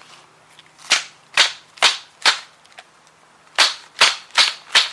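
A dirty cabin air filter being banged against concrete pavers to knock leaves and debris out of its pleats: two runs of four sharp knocks, about two a second, with a pause between.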